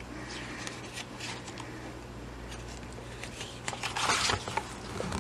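A paper page of a large picture book being turned by hand. Soft handling rustles come first, then a louder swishing rustle of the page about four seconds in.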